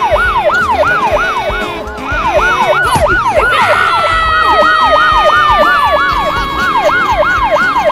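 Siren in a fast yelp, rising and falling about three times a second. About halfway through a long tone joins it, slowly falling in pitch.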